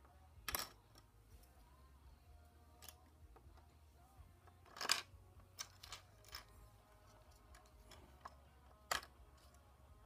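Small plastic Lego minifigure parts clicking and tapping as they are handled and fitted together: a handful of short, sharp clicks spaced irregularly, the loudest about half a second in and near five seconds.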